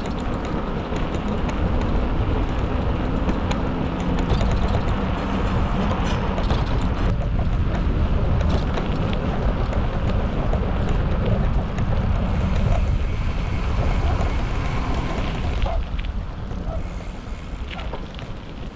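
Wind rushing over the microphone during a bicycle ride, a steady low rumbling noise with scattered small clicks, easing off slightly near the end.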